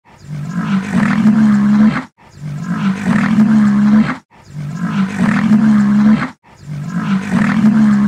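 Rhinoceros call, a drawn-out pitched call that grows louder over about two seconds, heard four times in identical form with short silent gaps between.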